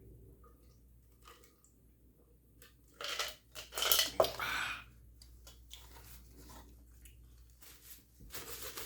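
A person eating close to the microphone: faint chewing and mouth clicks, then about three seconds in, a louder crackling, crunching noise that lasts nearly two seconds.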